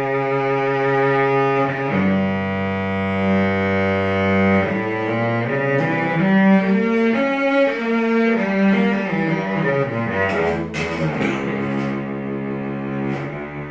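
A cello bowed in a slow melody of held notes, some of them sounded two at a time, with a sliding change of pitch about ten seconds in.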